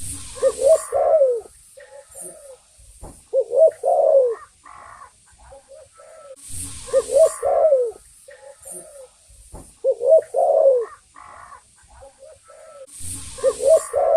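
Spotted dove (tekukur) singing its cooing song: short low notes leading into a rolling coo, repeated about every three seconds. A brief rush of noise comes with every second phrase.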